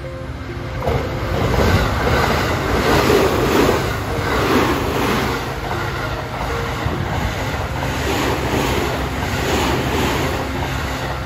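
JR 285 series Sunrise Seto/Izumo sleeper train passing close by: rolling noise with a rhythmic clatter of wheels over the rail joints. It swells about a second in as the train reaches the spot.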